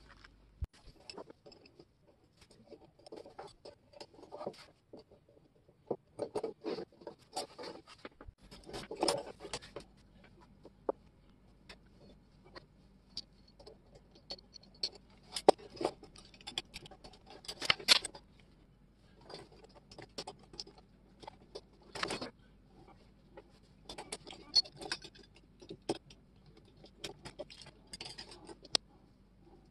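Handling noise from reassembling a pair of vintage Shear Magic three-blade grass shears: metal blades, bolts and washers clink and tap, and plastic handles click and scrape as the parts are fitted together by hand. The sounds are irregular and spaced out.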